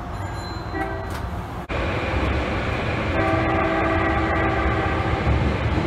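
Electric horn of a Japanese commuter train: a short blip about a second in, then a long steady blast of about two and a half seconds, over the low rumble of the running train.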